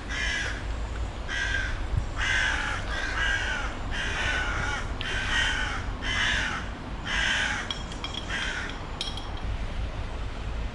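Several crows cawing, a right racket of harsh repeated caws, about one a second and sometimes overlapping, dying away about nine seconds in.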